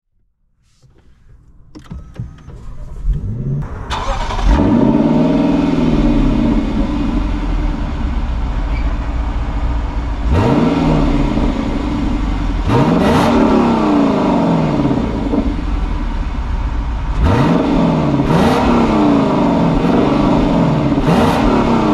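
2024 Lexus LC500's naturally aspirated 5.0-litre V8 revving and accelerating. A sharp rev flares up and falls back about four seconds in, then the pitch rises and drops again several times as the automatic shifts gears. Short sharp cracks come near the shift points.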